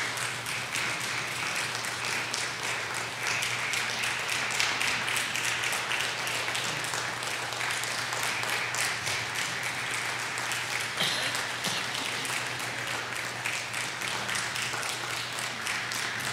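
Congregation applauding steadily: dense, continuous clapping from many people.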